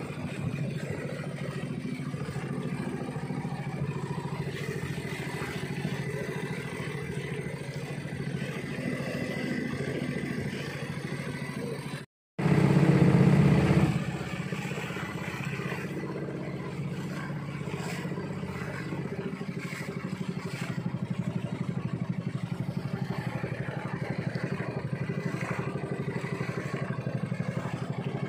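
Small fishing boat's engine running steadily under way while trolling. It is briefly louder just past the middle.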